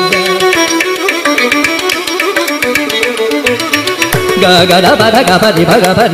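Carnatic concert music in raga Mohanam. A violin plays a stepping melodic phrase over regular mridangam strokes, and a male voice comes back in singing about four seconds in.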